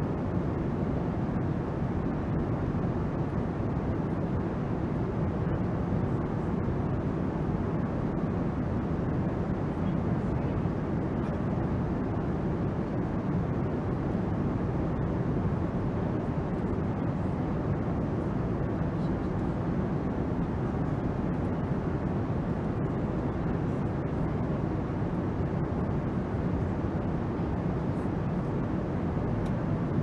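Boeing 777 passenger-cabin noise: a steady, unchanging rumble of engine and airflow noise.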